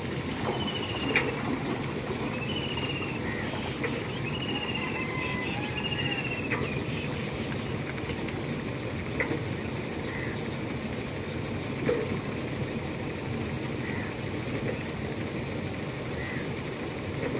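Water splashing and sloshing as water buffalo calves standing in a pond are washed by hand, with a few louder splashes. Small birds chirp now and then, mostly in the first half.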